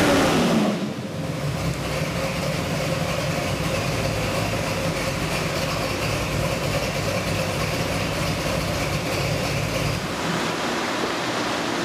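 Small-block Ford 427 Windsor stroker V8 on an engine dyno, its revs falling away quickly at the end of a wide-open-throttle pull, then settling into a steady idle.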